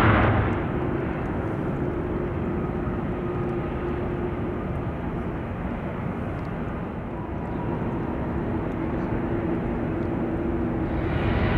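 Distant airliner jet engines running steadily at low thrust, a rumbling noise with faint steady whine tones. A louder jet sound fades away in the first second, and near the end the level starts to build as engines spool up.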